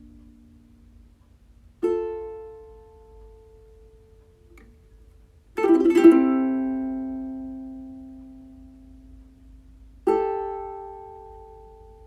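Three slow chords on a plucked string instrument, each strummed once and left to ring out and fade; the middle chord, the loudest, is rolled over about half a second.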